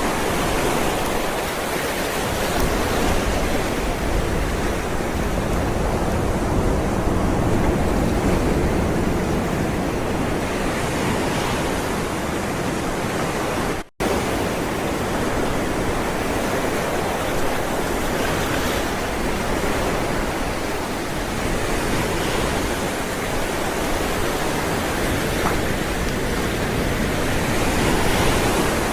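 Ocean waves rolling onto the shore: a continuous wash of surf that swells and eases gently. The sound cuts out for an instant about halfway through.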